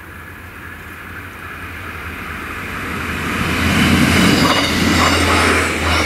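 Class 628 diesel multiple unit passing over a level crossing: diesel engine hum and wheel-on-rail noise growing louder as it approaches, loudest about four seconds in and staying loud as it goes through.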